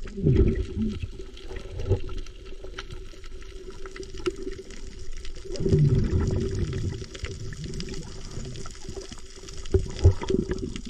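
Water sloshing and bubbling around a spearfisher's camera in the sea, with low swells about the start and again about six seconds in, scattered small clicks, and a faint steady hum.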